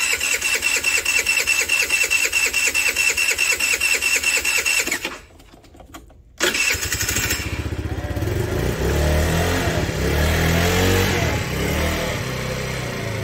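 Electric starter cranking the Tao Pony scooter's 49cc four-stroke engine in a fast, even rhythm for about five seconds, a short pause, then a second crank on which the engine catches and runs, its speed wavering. A first cold start, primed with gasoline sprayed into the intake and the throttle held wide open.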